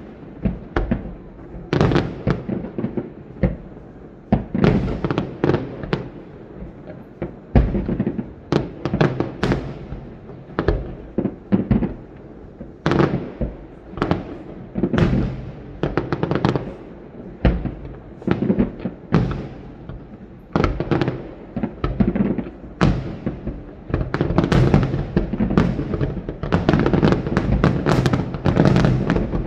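Aerial fireworks going off one after another, sharp booms with echoing tails about one or two a second, building in the last few seconds into a dense barrage of crackling bursts.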